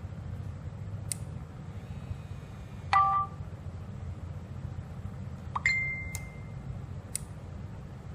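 Two short electronic beeps from a mobile device: a brief chime of several tones about three seconds in, then a single high tone held about half a second a little before six seconds, with two faint ticks, over a steady low hum.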